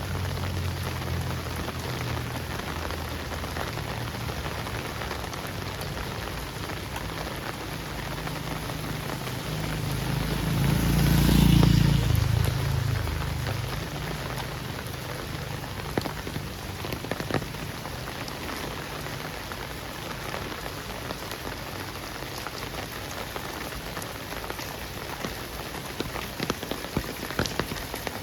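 Heavy rain falling steadily. A low rumble swells and fades about eleven seconds in, and sharp single drops tick close by near the end.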